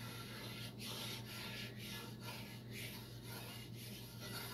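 Spoon or whisk scraping back and forth across the bottom of a cast iron pot, stirring a dark roux in regular strokes about three a second.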